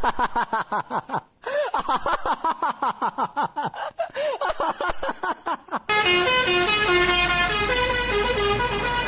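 Multi-tone 'telolet' bus horn: about four quick warbling chirps a second for the first six seconds, then a tune of held notes that step from pitch to pitch.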